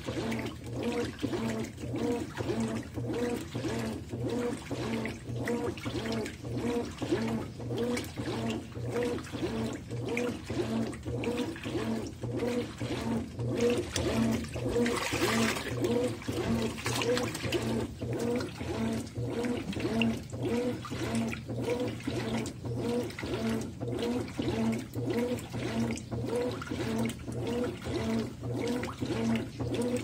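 Consul CWE13AB 13 kg top-load washing machine agitating a full tub of laundry at water level 4. The drive motor hums steadily under a regular swish and slosh of water, about one and a half agitator strokes a second. About halfway through there is a brief louder splash.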